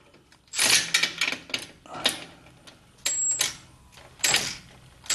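Cordless electric ratchet wrench pulsed in short bursts on a tight exhaust clamp nut, clicking and stalling at its torque limit, about a second between bursts.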